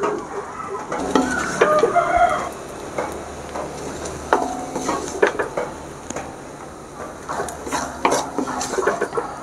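Spoon stirring in a cooking pan, with irregular clinks and scrapes against the metal and a light sizzle of frying food.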